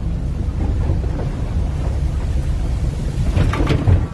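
Fishing boat at sea in rough weather: steady low engine rumble under heavy wind buffeting the microphone, with a louder rush of noise about three seconds in.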